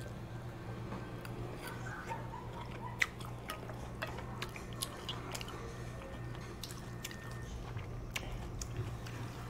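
Eating at a table: scattered small clicks and crunches from chewing and utensils over a steady low hum.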